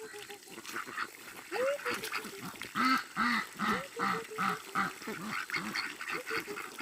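Animal calls: a quick, even run of about eight short calls in the middle, with a few higher calls that rise in pitch before and after it.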